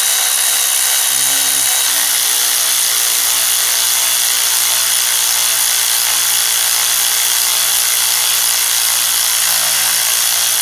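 Electric ratchet motor running steadily as it drives a Time-Sert tap into a head-bolt hole, cutting new threads in the engine block. The motor's tone shifts slightly about two seconds in.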